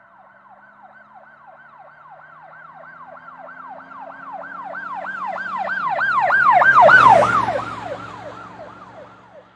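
Emergency vehicle siren in a fast repeating falling sweep, about three sweeps a second. It grows louder to a peak about seven seconds in, then fades as the vehicle passes, with the vehicle's engine rumbling underneath.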